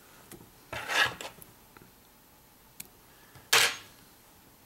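Two short scratchy rubbing rustles, about two and a half seconds apart, from hands handling fly-tying material at the vise.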